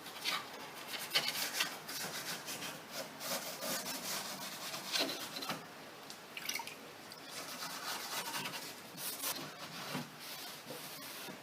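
Wiping strokes rubbing over an oak cabinet surface as it is cleaned after a wash with TSP and warm water: irregular, brisk strokes, easing off about halfway through and picking up again near the end.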